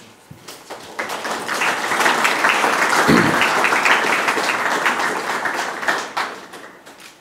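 Audience applauding: the clapping builds about a second in, holds steady, then fades away near the end.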